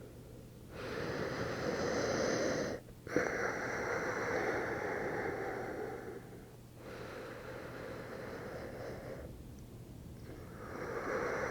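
A person breathing slowly and deeply, four long breaths of about two to three seconds each with short pauses between them.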